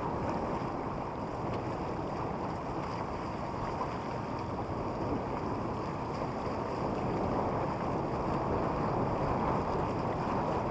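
Wind buffeting the microphone and water rushing along the hull of a sailing yacht under way, a steady even rush.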